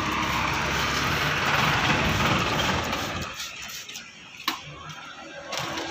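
Steady spray hiss of engine degreaser being sprayed onto a scooter's grimy engine, over a low steady machine hum. Both cut off about three seconds in, and a single sharp click follows a second later.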